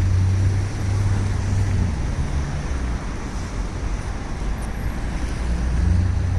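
Road traffic on a busy street: cars driving past, with the low engine hum of a passing vehicle loud at the start and another one coming up near the end.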